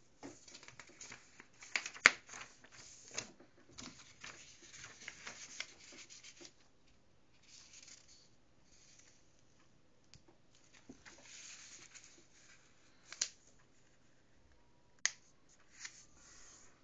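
A sheet of paper being folded on a table by hand, rustling and sliding in bursts as the creases are pressed. There are a few sharp clicks, the loudest about two seconds in.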